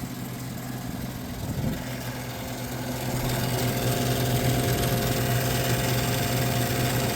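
1978 Gibson Air Sweep window air conditioner running: a steady hum from its reciprocating compressor with the condenser fan turning, getting louder about three seconds in. The condenser fan is out of balance and rubbing against its shroud, which the owner says needs balancing.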